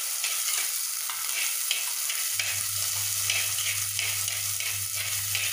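Garlic, ginger, green chillies and curry leaves sizzling in hot oil in a clay pot, with a steel spoon scraping through them in repeated strokes as they are stirred. A low steady hum comes in about two seconds in.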